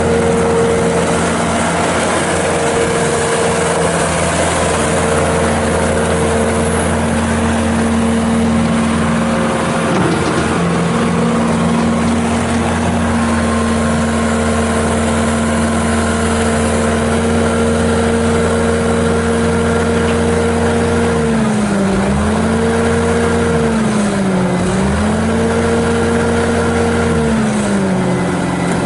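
Bobcat S650 skid steer's Kubota V3307 four-cylinder turbo diesel running at high throttle, a steady engine drone. Its pitch sags and recovers three times near the end.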